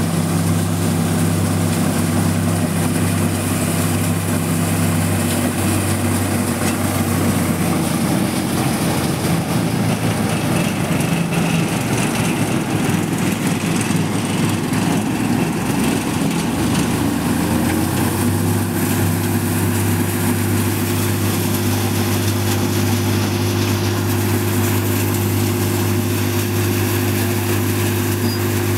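Tractor-powered soybean thresher running: the tractor engine's steady drone together with the thresher's drum and fan. Its steady tone breaks up into a rougher sound for several seconds midway, then rises back and settles.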